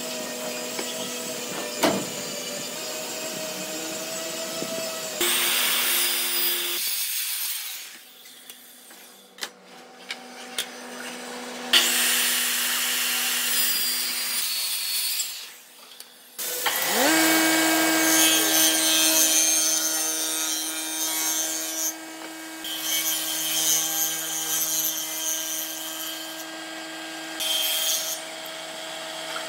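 Hand-held circular saw cutting through a wooden board. About halfway through, an electric jointer's motor spins up with a rising whine and runs steadily while boards are fed across its cutter head, the cutting noise coming and going.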